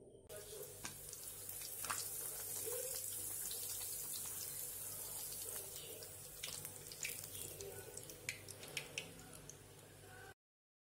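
Appalam (papad) frying in hot oil in a kadai: a faint, steady sizzling hiss that slowly fades, with a few sharp crackles in the second half. It cuts off suddenly near the end.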